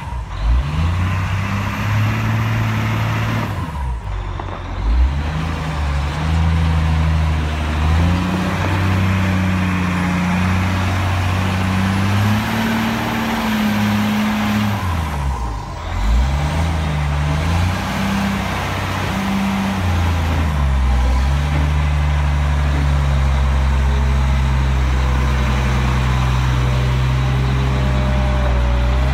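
Caterpillar 972H wheel loader's diesel engine running, its pitch rising and falling several times as it is revved, then holding at a steady speed for the last third.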